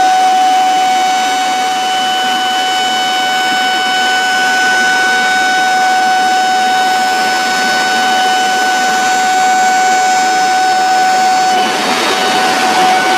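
A dam's discharge warning siren sounding one steady tone over the rush of water from the spillway gates. The siren cuts off about eleven and a half seconds in, and the rushing water grows louder.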